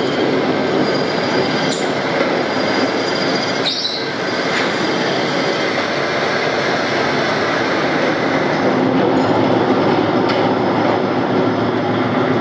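Metal lathe turning a steel bar for motorcycle front sprockets: the cutting tool shears the spinning workpiece with a steady, harsh metal-cutting noise and thin high whining tones, broken by a couple of sharp ticks.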